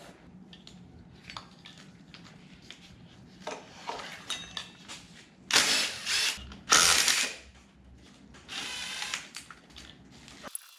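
A handheld power tool, such as a cordless drill or ratchet, runs in three short bursts, with light clicks and rattles of parts between them.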